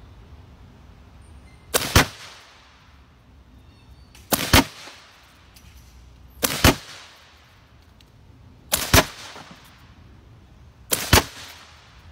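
B&W S45 .45 calibre semi-automatic air rifle firing five shots, roughly two seconds apart, each heard as a double crack a split second apart.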